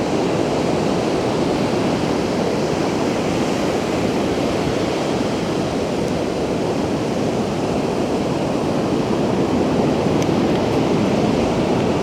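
Ocean surf: a steady, continuous rush of breaking waves.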